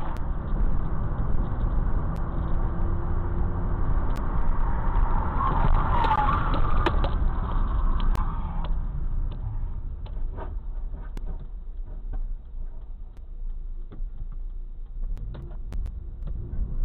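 Car driving on a highway, its road and engine noise heard inside the cabin through a dashcam microphone. About five to seven seconds in, a brief wavering higher sound and a few sharp knocks rise above it, followed by scattered clicks.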